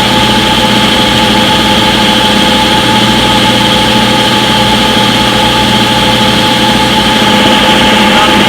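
Front-load washing machine in its spin cycle: a steady, loud mechanical hum with several constant tones over an even hiss.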